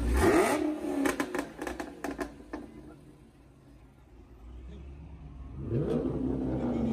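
A car engine revs briefly as a car pulls past, then dies away to near quiet with a few clicks. Near the end an engine rises in pitch and keeps running.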